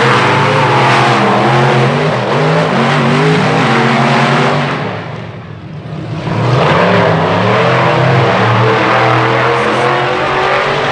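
Monster truck engines revving hard, their pitch climbing and falling, easing off and fading about five seconds in, then coming back up loud.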